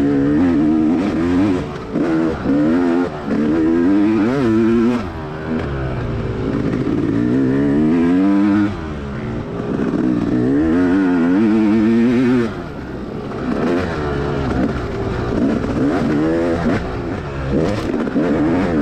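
Dirt bike engine revving up and down under hard riding, its pitch climbing and falling again and again with throttle and gear changes. The throttle is briefly closed a few times, about 5, 8.5 and 12.5 seconds in.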